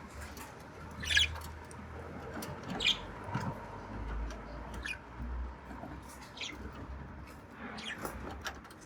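Budgerigar eating seeds: small clicks and cracks of its beak husking grains, with about five short, high squeaky chirps spaced a second or two apart.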